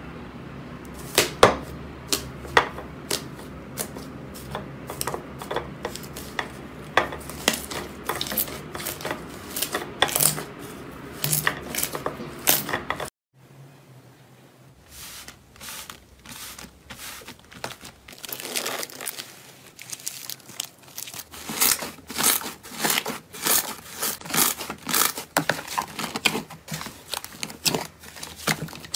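Slime being worked by hand, making many quick, irregular crackling and popping clicks. The sound cuts out briefly about 13 seconds in, comes back softer, and grows denser again from about 18 seconds.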